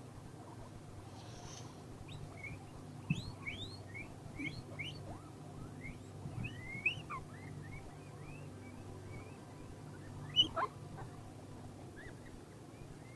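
Guinea pigs squeaking: many short high squeaks that rise and fall in pitch, thickest in the first half, with one louder sharp squeak about ten seconds in.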